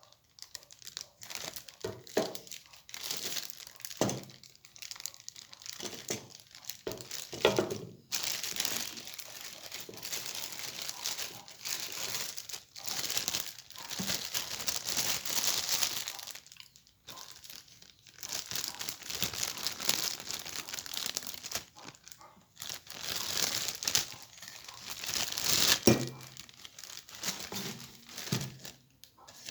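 Packaging crinkling and crumpling as it is handled and pulled open, with some tearing, in irregular crackly stretches broken by short pauses.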